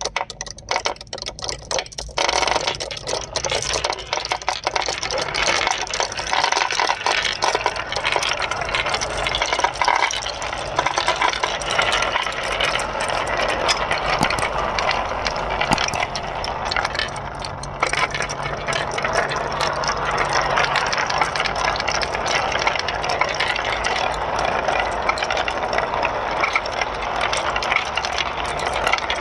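Marbles rolling and clattering down a homemade marble run track: a few separate clicks at first, then from about two seconds in a dense, continuous rattle.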